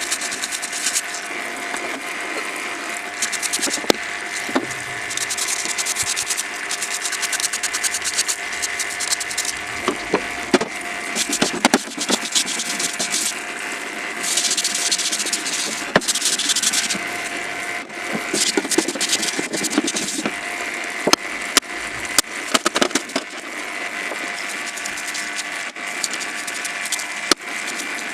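Repeated scraping and rubbing against metal over a steady hum, the sound of rust and dirt being worked off an old steel pipe cutter. The scratching comes in uneven bursts of a second or more, with sharp clicks scattered through.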